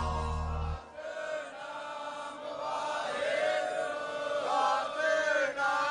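A low music drone cuts off about a second in, and slow devotional chanting follows, with long held vocal lines that rise and fall in pitch and grow louder toward the end.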